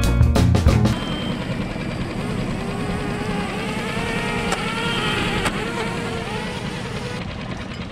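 Background music cuts off about a second in, then a small motor runs steadily, its pitch wavering slightly.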